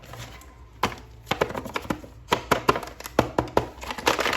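Hands handling small plastic toy pieces and packaging: a run of sharp, irregular clicks and taps that grows busier after about a second.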